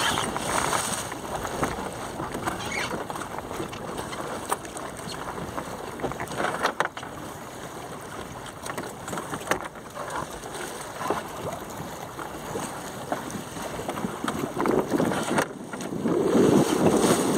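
Wind rushing over the microphone and water washing past the hull of a small sailing dinghy under sail, as a steady hiss with a couple of sharp clicks. The wind grows louder near the end.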